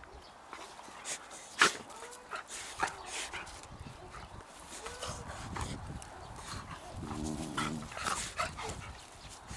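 Dog sounds: short whimpering and yipping calls broken by a few sharp bursts, the loudest about a second and a half in, with a brief lower pitched call about seven seconds in.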